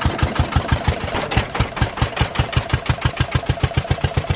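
Small engine running steadily with a fast, even thudding of about eight beats a second.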